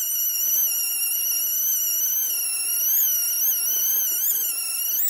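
High-pitched whine of a rotary tool spinning an abrasive disc against a rusty steel oil pan, grinding it down to bare metal. The pitch dips and recovers several times as the disc is pressed onto the metal.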